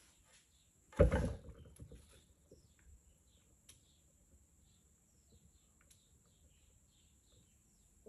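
A thump as the painting turntable is spun by hand, its rumble fading over about a second. Faint high chirps follow.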